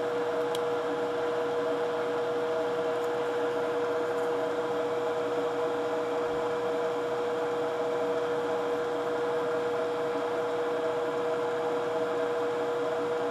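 Steady electrical or fan hum of bench equipment, with a constant mid-pitched whine over a soft hiss. A faint tick comes about half a second in.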